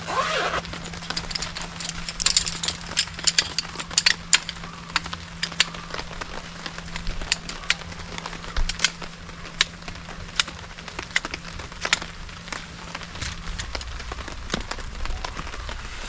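Rain: scattered large drops tapping irregularly, a few a second, over a light hiss. A faint steady low hum stops about three-quarters of the way through.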